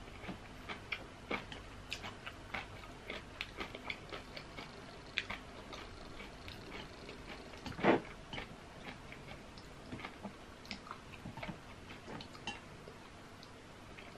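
Close-miked chewing of soft food, boiled potato and fried mushrooms, with many small wet mouth clicks and smacks at an irregular pace. A louder single knock about eight seconds in.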